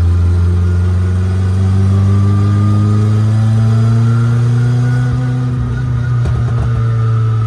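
Turbocharged car engine heard from inside a stripped, roll-caged cabin, pulling with the revs climbing slowly. About five seconds in, the revs drop and a short run of clicks and pops follows.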